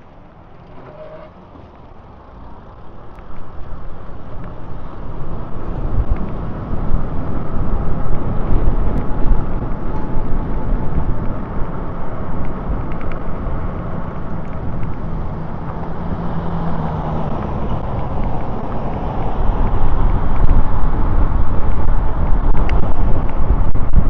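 Wind buffeting the microphone with tyre and road noise as an e-bike pulls away and gathers speed; quiet at first, then growing loud after a few seconds and staying a steady rush.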